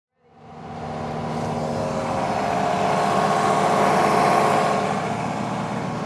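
A vehicle engine running steadily, fading in over the first second and growing louder until about four seconds in, then easing off slightly.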